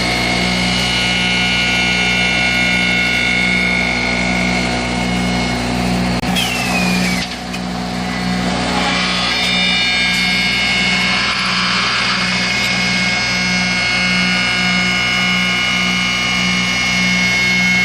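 Wooden broom-handle threading machine running with a steady, pulsing mechanical hum. About six seconds in there is a brief burst of noisier sound with a falling whine, and then the machine carries on running.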